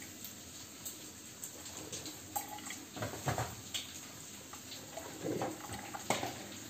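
Vestel grinder drip coffee maker gurgling and hissing as it heats and pushes hot water through into the carafe, with irregular short pops, during a water-only rinse cycle.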